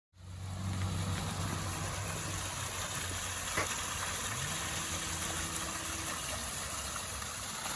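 Water splashing steadily down a newly built pondless waterfall into its rock-filled basin, over a low hum. A single short click comes about three and a half seconds in.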